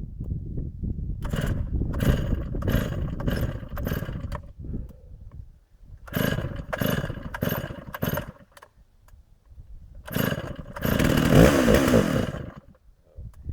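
Stihl MS 660 two-stroke chainsaw being pull-started over and over: quick rips of the starter cord in groups, then near the end the engine fires and runs raggedly for about two seconds before dying. This is a hard start; the saw will not keep running.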